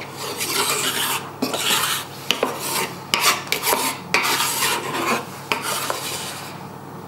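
Chef's knife blade scraping across a wooden chopping board, gathering up crumbs in repeated strokes with a few sharp taps among them, stopping near the end.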